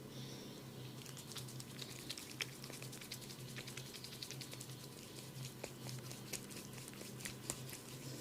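Hands massaging an oiled scalp and hair: a dense run of small, faint wet clicks and crackles that thickens about a second in.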